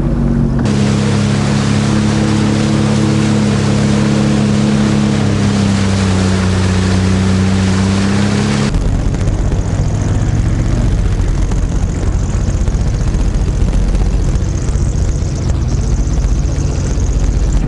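Jet ski engine running steadily under way, with rushing water and wind noise over it. The sound changes abruptly twice, from one stretch of riding to another.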